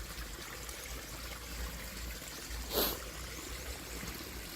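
Water from a hose pipe trickling and flowing down the channels of a cement fake-rock waterfall, a steady trickle. One brief sharp sound cuts through it near the three-second mark.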